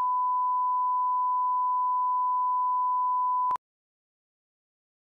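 Steady 1 kHz line-up test tone played with broadcast colour bars, one unchanging pure beep. It cuts off suddenly about three and a half seconds in.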